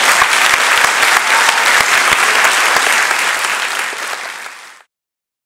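Theatre audience applauding: dense, loud clapping that fades over about a second and then cuts off abruptly near the end.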